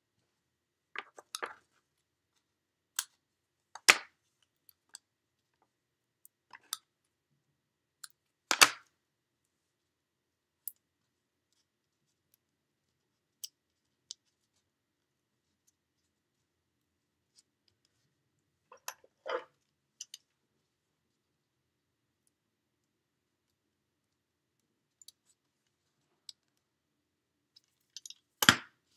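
Scattered short snips, clicks and taps from paper-crafting by hand: small scissors cutting pieces of foam dimensionals, with paper pieces handled and pressed onto a card. Long quiet gaps separate them, and the loudest knocks come at about four seconds, nine seconds and just before the end.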